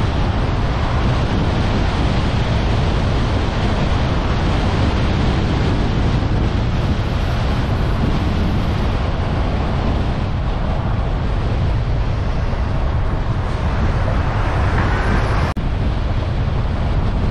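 Steady rumble of wind and road noise from a car driving at speed, with wind buffeting the microphone. The sound breaks off for an instant near the end.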